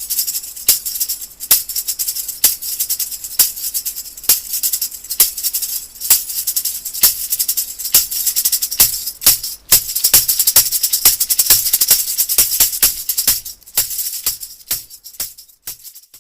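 A shaker-type percussion instrument shaken in a steady rhythm, a continuous rattle with a sharp accent about once a second; the strokes come faster near the end and the playing then stops.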